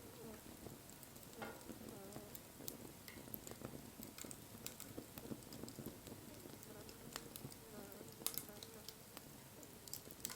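Wood fire crackling quietly, with scattered sharp pops over a soft hiss; the sharpest pop comes about eight seconds in.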